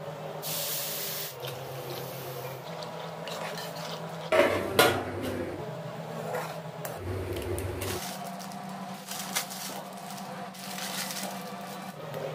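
Water poured into a hot non-stick kadai of fried onions and masala, with a short sharp hiss about half a second in. After that a metal spatula scrapes and knocks against the pan as the spiced water boils and the noodles are stirred in, with the loudest knocks about four seconds in, over a steady low hum.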